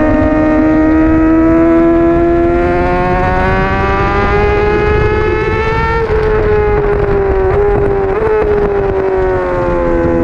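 Honda CBR600RR's inline-four engine at full throttle, its pitch climbing steadily for about six seconds. It then drops sharply and steps down through quick downshifts as the bike brakes, and the note falls away near the end. Wind noise runs underneath.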